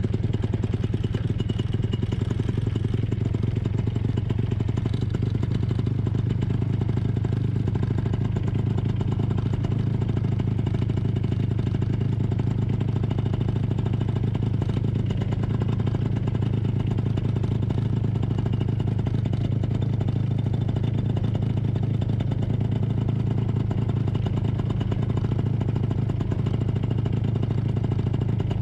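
Paramotor trike's two-stroke engine idling steadily, just after start-up, with its propeller turning.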